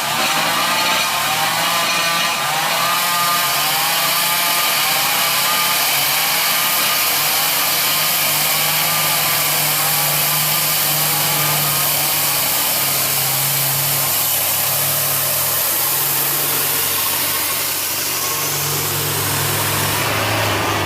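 Loaded logging truck's diesel engine running under load, its pitch stepping up and down, with a steady high hiss over it.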